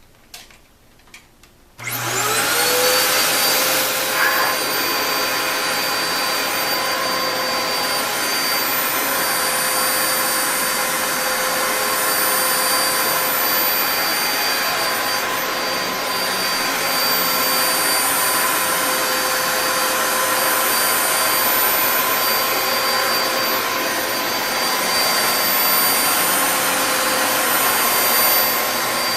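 A couple of clicks, then about two seconds in a 2002 Dyson DC07 Animal upright vacuum cleaner switches on. Its motor spins up to speed with a rising whine, then runs steadily with a high whine over the rush of airflow.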